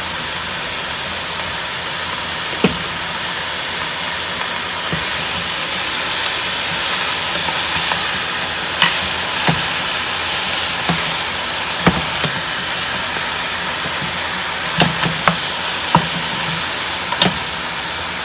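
Beef ribs sizzling in a little oil in a stainless-steel stockpot, a steady hiss, as a wooden spatula stirs them. Scattered knocks of the spatula and bones against the pot come in the second half, several close together near the end.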